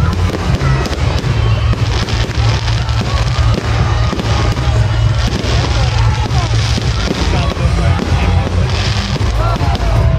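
Aerial fireworks bursting and crackling in quick succession over a heavy low rumble.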